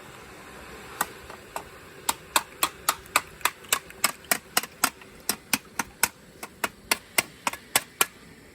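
A steady run of sharp taps, about four a second, starting about a second in and stopping shortly before the end: the solidified aluminum casting being tapped to knock off the aluminum can stuck to it.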